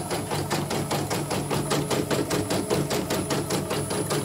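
Portable embroidery machine stitching, its needle bar clattering in a rapid, even stitch-by-stitch rhythm over a steady motor hum. This is a test run after the bobbin case was replaced, and it sews on without a thread-break stop.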